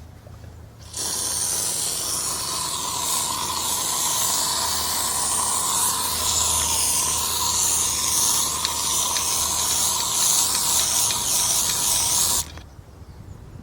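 Bitumen joint sealer sprayed from an aerosol can in one long steady hiss, starting about a second in and cutting off near the end.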